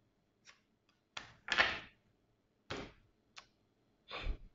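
Lenormand cards being shuffled and dealt onto a table: about five short card rustles and slaps. The loudest comes about a second and a half in, and the last, near the end, lands with a dull thump as a card or the deck is set down.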